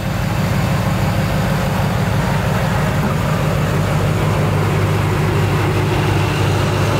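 Pickup truck engine idling steadily, a deep even low rumble.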